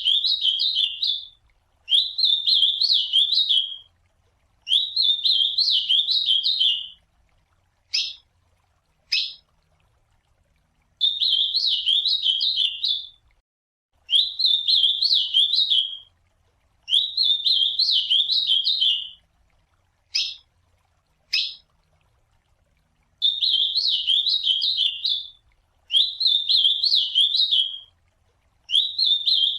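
Ultramarine grosbeak (azulão) singing: about nine rapid, warbling phrases of roughly two seconds each, repeated with short pauses between them. Twice, a pair of short sharp call notes comes in the pauses.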